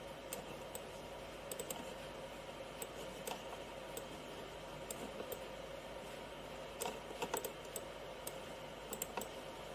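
Irregular clicking from working a computer mouse and keys, single clicks and quick little clusters with gaps between, over a faint steady hum.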